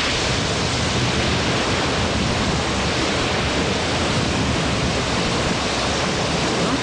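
Steady, loud rushing of wind and water around a small boat on open sea, starting suddenly.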